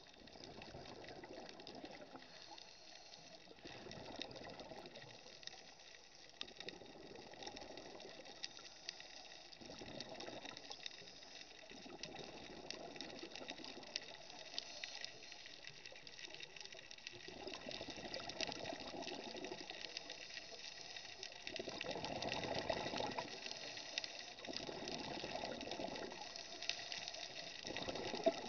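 Scuba regulator exhaust heard underwater: a diver's exhaled bubbles gurgling out in bursts every few seconds, growing louder near the end, over a steady hiss.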